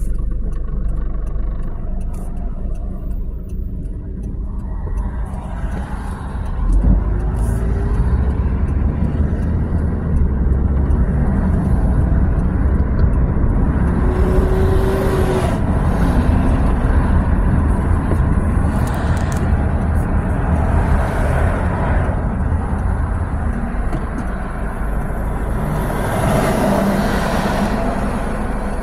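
Road noise of a moving car heard from inside: a steady low rumble of engine and tyres, with other traffic swelling past now and then. There is a thump about seven seconds in and a brief whine around fifteen seconds.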